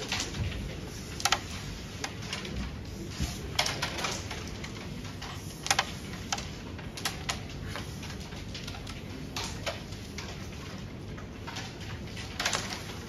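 Carrom board in play: a string of sharp wooden clicks and clacks, a second or two apart, as the striker is flicked into the carrom men and pieces knock against each other and the wooden rails.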